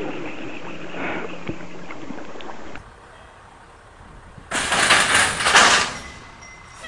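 Noise of a pickup truck wading through a shallow river, which cuts off abruptly. Then a loud metal crash and scrape, lasting about a second and a half, as a truck shoves into a closed steel automatic gate and bends it over.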